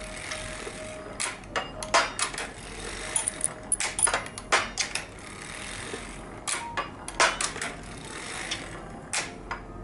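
Harrison semi-automatic sock knitting machine being hand-cranked back and forth on a heel. Clusters of sharp metallic clicks and clacks come from the needles, cams and levers every second or two.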